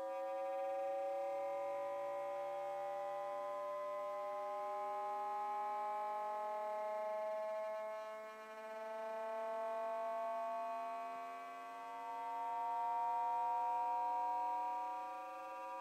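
Electronic drone of several buzzy oscillator tones, each slowly gliding in pitch, some upward and some downward, so the mix keeps shifting and beating. The loudness swells and sags gently, dipping twice a little past the middle.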